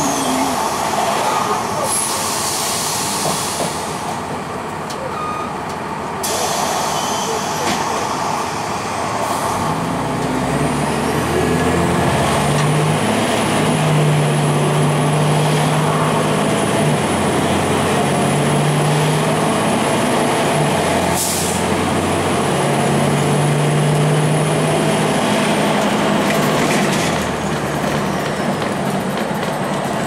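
2002 Blue Bird CS transit bus under way, its Cummins ISC diesel and Allison B400R automatic transmission running with a hum that rises and falls in pitch. There is a short hiss of air, typical of an air-brake release, about two seconds in, and a thin high whine through the middle.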